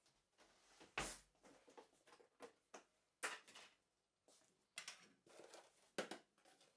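A few faint, scattered knocks and clicks of kitchen things being handled, the loudest about a second in; near the end a plastic container is picked up.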